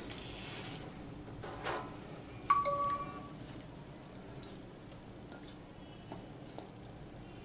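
Faint handling sounds as raw chicken pieces are set down on a cloth kitchen towel, broken about two and a half seconds in by a single short ringing ding that fades within half a second.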